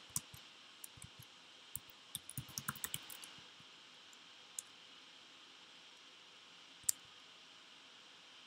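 Computer keyboard keystrokes: a few scattered taps, a quick run of typing about two seconds in, then two more single taps, the loudest near the end.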